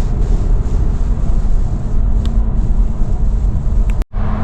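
Road and engine noise from inside a moving car: a steady low rumble that drops out for a split second near the end.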